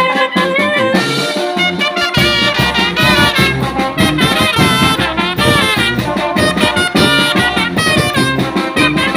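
Mexican banda brass band playing: trumpets and trombones carry the melody over a steady beat, with a heavy low bass line coming in about two seconds in.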